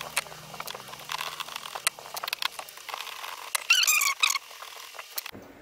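Small clicks and taps of a screwdriver working screws out of an electric fan's motor housing, with one brief high-pitched squeak a little under four seconds in.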